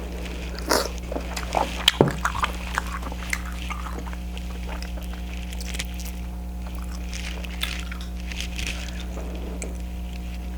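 Close-up eating sounds from a king crab seafood boil in butter sauce: wet chewing and smacking, with a cluster of sharp clicks and snaps in the first few seconds, then softer, sparser mouth sounds. A steady low electrical hum runs underneath.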